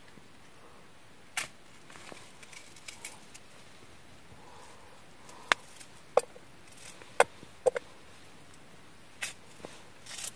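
Knife cutting through a green capsicum held in the hand over a steel bowl: about half a dozen sharp, crisp clicks at uneven intervals, over a faint steady hiss of rain.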